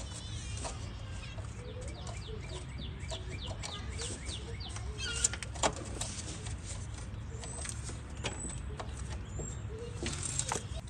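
Birds chirping and trilling, with scattered clicks and clinks of hand tools working on a riding mower's shift cable, over a steady low hum.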